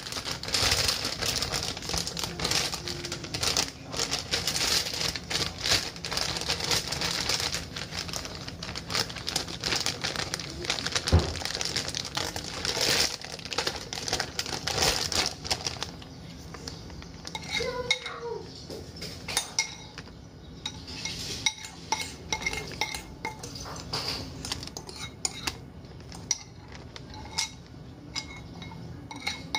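A plastic zip-top bag crinkling and rustling as it is handled and held open, with many small crackles. In the second half, a metal spoon clinks and scrapes against a ceramic bowl as marinated meat is scraped into the bag.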